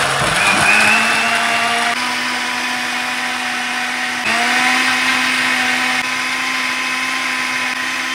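Countertop blender blending a strawberry milkshake of strawberries, yogurt and milk: a steady motor whine that steps up a little in pitch and loudness about four seconds in, and begins to wind down with falling pitch at the very end.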